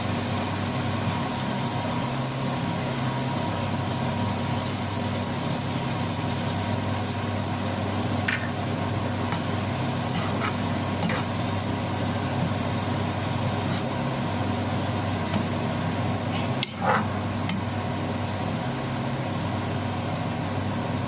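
Pork in shrimp-paste and vinegar sauce sizzling and simmering in a nonstick frying pan, over a steady low mechanical hum. A metal ladle stirs the pork, giving a few light clicks.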